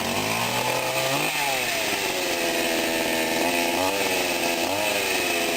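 Sadko GCS 510E petrol chainsaw's two-stroke engine running just after a cold start with the choke pushed in. Its engine speed rises and falls several times.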